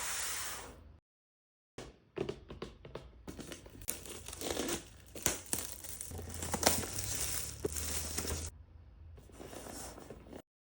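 Toy-box packaging being torn open and crinkled by hand: a dense run of sharp crackles and tearing.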